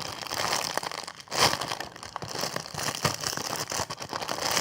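Plastic crinkling and crackling as a Super Jumbo Pancake squishy toy is handled and squeezed to test its slow rise, with a louder crunch about a second and a half in.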